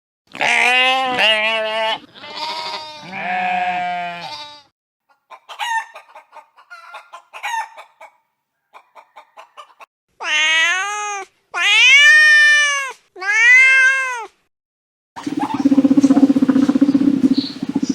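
Different farm animals calling one after another. First comes a wavering pitched call lasting about four seconds, then a string of short clucks. Next are three separate meows of about a second each, rising and falling in pitch, and near the end a rougher, noisier animal sound.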